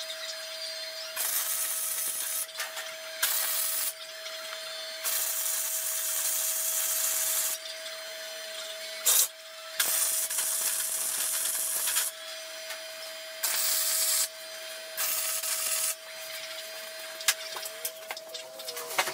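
Wire-feed (MIG-style) welding arc crackling on square steel tubing in about seven separate runs, each from under a second to about two and a half seconds long, with short pauses between. A steady thin hum runs underneath.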